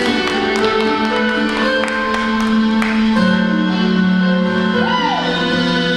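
Slow music with long held notes that change every second or so, playing as the accompaniment to a ballroom show dance.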